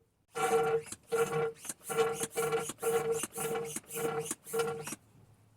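Hand-operated vacuum oil extractor pump being worked in quick repeated strokes, about two a second, each with a pitched squeak, drawing old fork oil up the tube out of the fork leg. The pumping stops about five seconds in.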